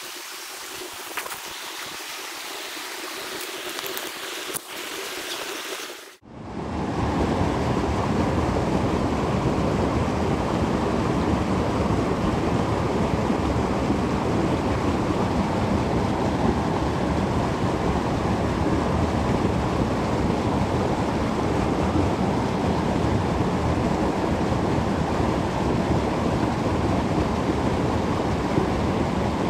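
Footsteps and rustling through dry leaf litter and undergrowth with a few sharp twig snaps. About six seconds in this cuts abruptly to the steady rush of a fast-flowing creek running over shallows.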